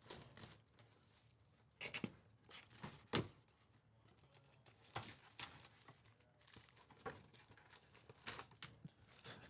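Faint, scattered crinkles and rustles of foil-wrapped trading-card packs being handled, with a sharper crackle about three seconds in.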